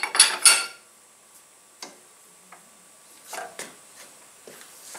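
Metal clanking on a 1K62 lathe as its tailstock is handled: three loud clanks in the first half second, then a few scattered light clicks and knocks.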